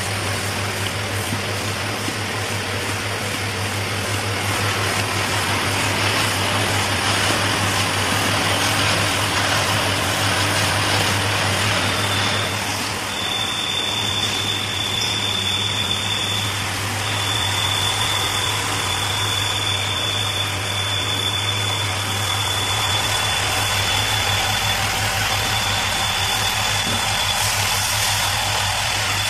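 Automatic cap assembly machine running: a steady low hum under an even mechanical hiss and clatter. About twelve seconds in a steady high whine joins and keeps on with brief breaks.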